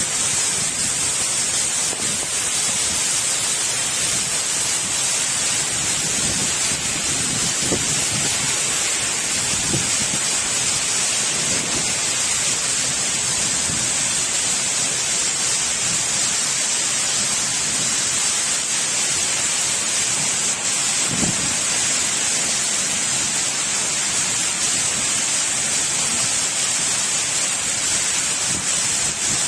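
Heavy rain pouring steadily, with strong wind tossing the coconut palms and a few short low swells.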